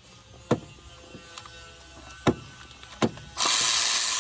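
A power tool runs for about a second near the end, spinning out an exhaust manifold bolt. It is preceded by three sharp metallic clicks as the tool and socket are worked onto the bolts.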